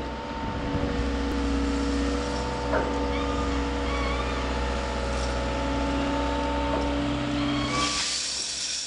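Wheeled material handler's engine running steadily with a constant multi-tone hum while its lifting magnet carries a load of steel turnings. Near the end a rattling hiss sets in as the turnings begin to drop from the magnet.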